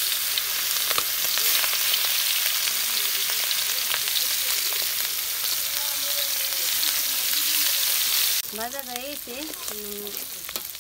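Food frying in hot oil in a steel kadai: a loud, steady sizzle, stirred with a spatula. About eight seconds in it drops suddenly to a quieter sizzle.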